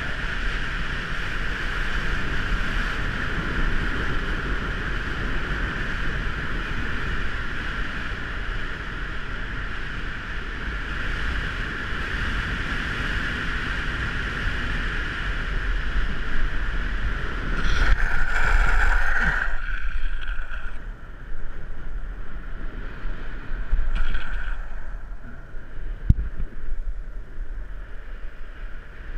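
Downhill longboard rolling fast on asphalt: wind buffeting the action camera over the steady hum of urethane wheels on the road. It gets louder and noisier for about two seconds some eighteen seconds in, and briefly again near twenty-four seconds, with a single sharp tick a little after.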